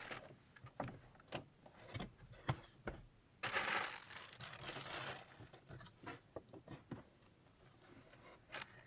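Packaging of a new car stereo being handled: faint rustling and crinkling with scattered light clicks and knocks, and a longer rustle about three and a half seconds in.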